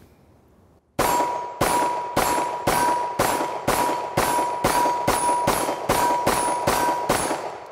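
Rock Island Armory 5.0 9mm semi-auto pistol fired fast, about a dozen shots at roughly two a second starting about a second in. A steel plate target rings from the hits.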